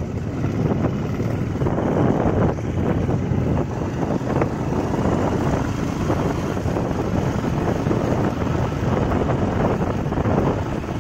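Wind rushing over the microphone of a moving motorcycle, with the bike's engine running underneath, steady throughout.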